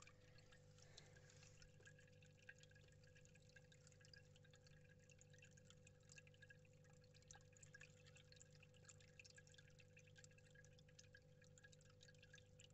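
Near silence: a faint steady hum with a faint continuous trickle of water, as from the terrarium's pump-fed water feature.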